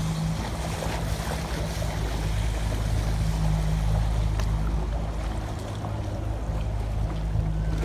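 Motorboat engine running with a steady low hum, over water lapping, with a few faint splashes.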